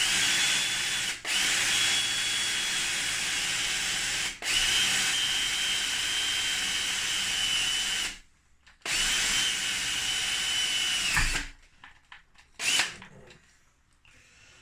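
Electric drill boring holes through a wooden block, running in long steady bursts with a high whine. It briefly stops and restarts a few times, pauses a little past the middle, runs again, then stops for good about three quarters through, leaving a few faint knocks.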